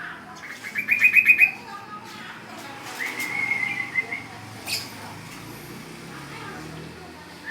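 High-pitched whistling: a quick run of short rising notes, then about a second later a single held, wavering whistle.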